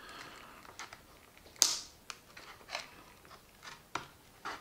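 Scissors cutting through stiff card packaging: a few irregular crunchy snips, the loudest about one and a half seconds in.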